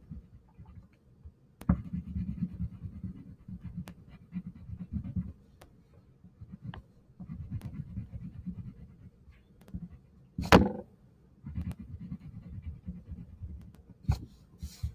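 Crayon rubbing back and forth on paper: runs of quick scratchy colouring strokes with short pauses between them. A few sharp clicks, and one louder knock about ten and a half seconds in.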